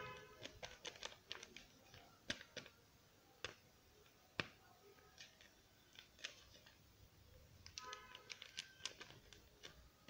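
Faint, irregular crinkling and crackling of a small paper-foil blind bag packet being turned and pressed in the fingers, with scattered sharp crackles. A short pitched sound comes at the start and again about eight seconds in.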